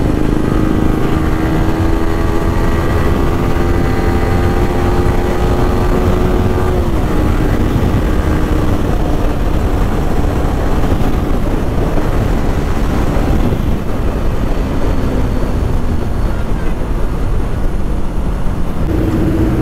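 Yamaha R15 V3 motorcycle engine pulling under way, its pitch rising slowly, then dropping about seven seconds in. Heavy wind rush on a helmet-mounted microphone takes over after that.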